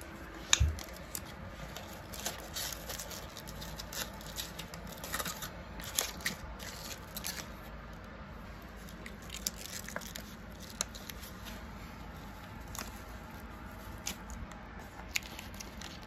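Cooling gel packs and a fabric cooler wrap being handled and fitted together: rustling and crinkling with scattered sharp clicks, and a thump about half a second in.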